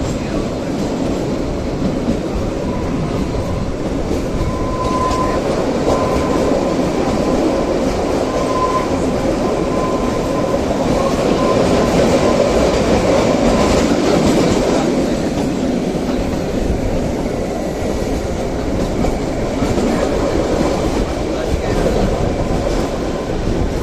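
Kalka–Shimla narrow-gauge toy train running along the track: steady, even noise of the wheels on the rails, with a thin high whine for several seconds in the first half.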